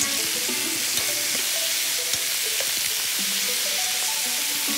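Chicken breasts searing in hot olive oil in a stainless steel skillet: a steady sizzle with a few small pops, under light background music.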